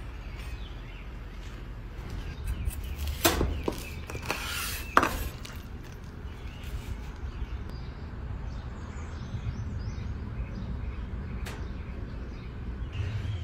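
Cooking utensils knocking on a flat-top griddle: two sharp knocks about a second and a half apart, with a short scrape between them, over a steady low rumble.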